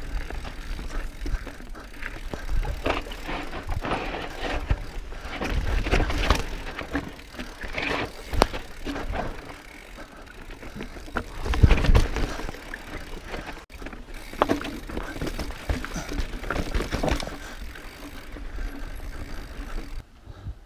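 Mountain bike rattling and knocking over rocky dirt singletrack, with tyre noise and wind rushing over the rider-mounted microphone. There is a heavy jolt about twelve seconds in.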